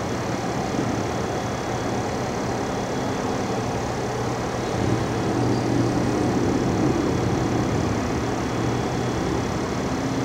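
Steady rumble of distant vehicles with a low hum, growing a little louder for a few seconds in the middle.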